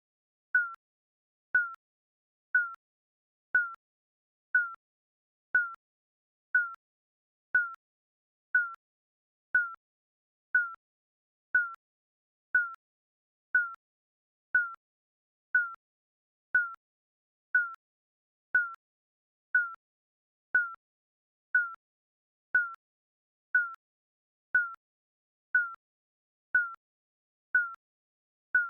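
Digital countdown timer beeping once a second: each beep a short high tone that dips slightly in pitch and dies away quickly, evenly spaced.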